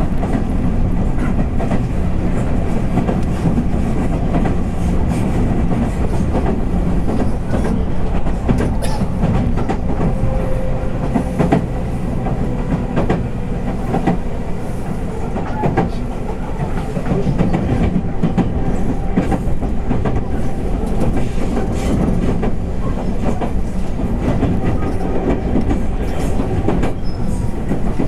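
Interior running noise of a JR West 221 series electric multiple unit's motor car under way: a steady rumble of wheels on rail with scattered clicks as the wheels cross rail joints.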